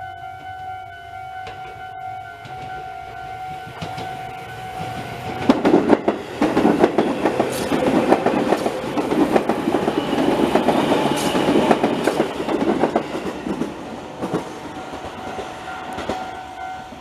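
Japanese level crossing warning bell ringing steadily with a Tobu 10050 series electric train passing through; the train grows loud about five seconds in with wheel-and-rail noise and rapid clicks, then fades about thirteen seconds in as the bell carries on.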